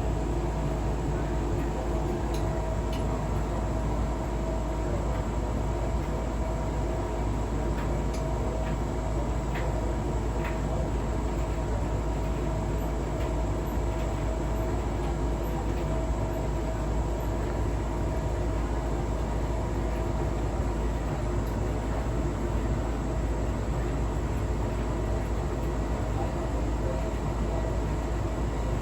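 Hotpoint household appliance running steadily with a squeak, slight scraping and scattered clicks, which the owner suspects may be a fault.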